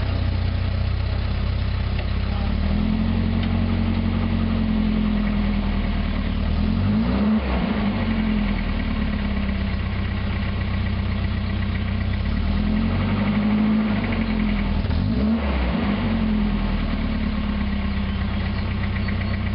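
Volvo 744 exhaust with no rear muffler: the engine idles and twice rises gently in revs and settles back down.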